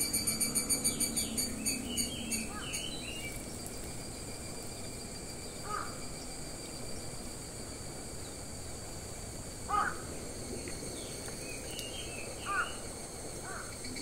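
Outdoor woodland ambience with a steady high insect buzz, soft high chirps of Japanese white-eyes at a birdbath, and a few short, louder crow caws, the loudest about ten seconds in.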